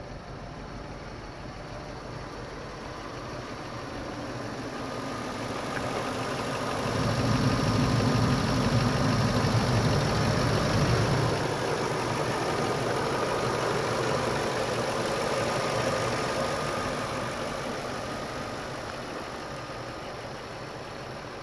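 Ford F-250 Super Duty pickup engine idling steadily with the hood open. It is loudest and deepest for a few seconds in the middle, heard up close over the engine bay, and fades again afterwards.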